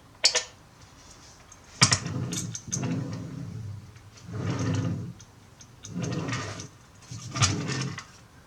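Model railway wagon rolled back and forth by hand, its wheels making a low rumble in repeated pushes about a second long, several of them starting with a click.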